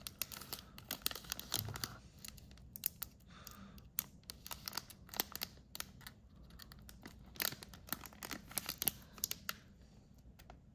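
Wrapping on a trading card box being torn and crinkled as the box is opened by hand: irregular crackles and rips, busiest in the middle and thinning out near the end.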